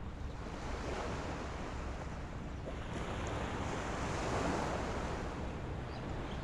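Ocean surf washing against the shore, with wind rumbling on the microphone. A wave builds and breaks about four seconds in.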